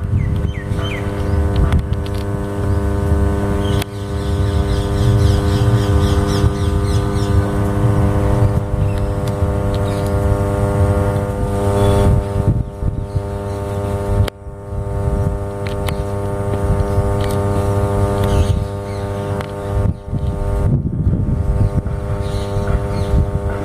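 33/11 kV oil-filled power transformer humming steadily, a drone of evenly spaced tones, over an uneven low rumbling noise.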